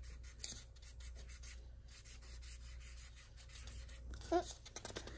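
Washable felt-tip marker scribbling back and forth on a coloring book page: quick, repeated scratchy strokes.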